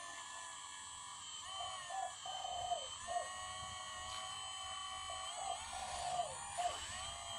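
The hydraulic pump and motor of a radio-controlled Kobelco SK200 model excavator whining as it digs. The whine dips and recovers in pitch several times as the boom and bucket work into the soil.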